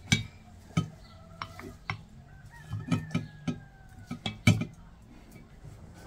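Dishes and cooking utensils clinking and knocking: about ten sharp, unevenly spaced clinks, the loudest about four and a half seconds in, with a faint thin held tone in the middle.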